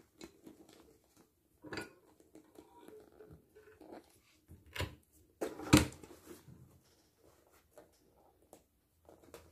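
Bench hand press worked by its lever to punch a hole through synthetic leather and lining for an eyelet: two sharp metal knocks about five and six seconds in are the loudest, with lighter clicks and rustles of the bag being handled around them.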